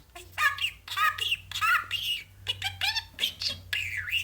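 Pet budgerigar chattering: a rapid string of warbled, squawky syllables in its speech-like babble.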